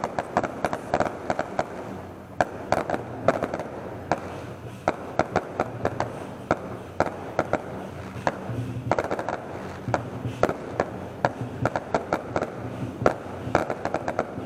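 Fireworks going off in rapid, irregular sharp bangs, several a second, over a steady background noise.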